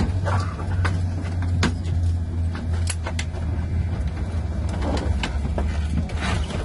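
Steady low hum inside a Boeing 787 cabin parked at the gate, with scattered sharp clicks and knocks.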